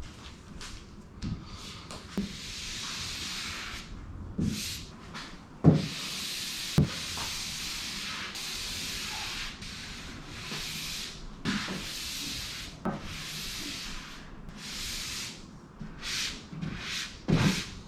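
Repeated rubbing strokes over a vinyl decal on a car bonnet as it is smoothed down, each stroke a scraping hiss lasting about a second, with a few short knocks between strokes.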